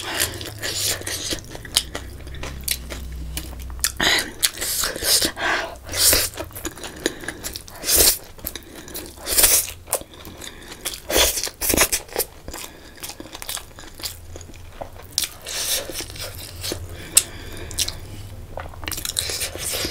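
Mouth sounds of eating spicy instant noodles with macaroni by hand: irregular slurps, chewing and lip smacks.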